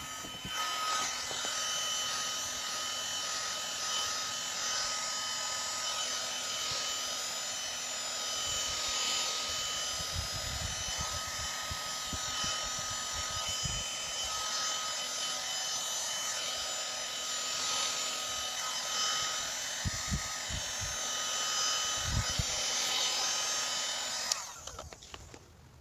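Handheld hot-air blower running steadily with a high whine, warming a crushed refrigerator door gasket so the rubber reshapes and seals. A few low bumps are heard along the way, and the blower cuts off suddenly near the end.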